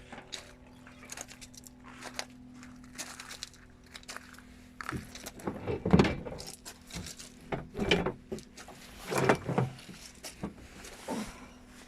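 A low steady hum, then a run of irregular knocks, thuds and rattles from about four seconds in, loudest around the middle.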